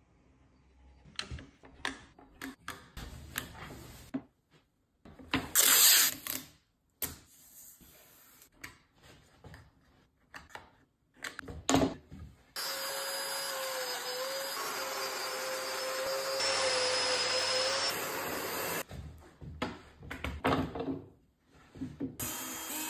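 Clicks and knocks from a tape measure and cabinet panels being handled on a workbench, then an electric power tool with dust extraction running steadily for about six seconds, followed by more handling knocks.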